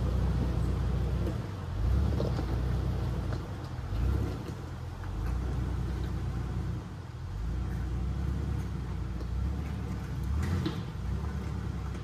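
Jeep engine running at low revs as the Jeep crawls over rock, its note rising and falling with the throttle.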